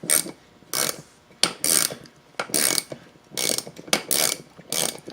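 Socket ratchet wrench on an extension, clicking in quick repeated strokes, about two a second, as it backs a lug nut off an ATV wheel.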